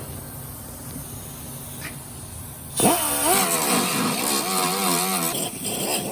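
Low steady rumble, then about three seconds in an angle grinder spins up with a rising whine and grinds down fresh spot welds on steel, its pitch dipping and recovering as it is pressed into the metal.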